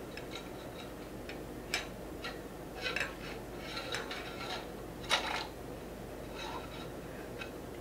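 Steel fork spring clinking and scraping against the inside of a motorcycle's upside-down fork tube as it is lowered in. A scatter of light metallic clinks and short rattles at irregular intervals, the strongest about five seconds in.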